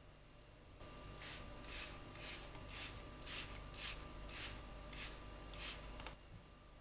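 Rhythmic scrubbing strokes on a surface, about ten of them at roughly two a second, starting about a second in and stopping near six seconds.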